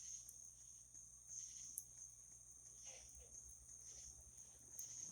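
Faint, steady high-pitched chirring of insects, such as crickets, with a few soft clicks.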